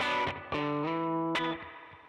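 Background music: distorted electric guitar playing held chords that change a few times and fade near the end.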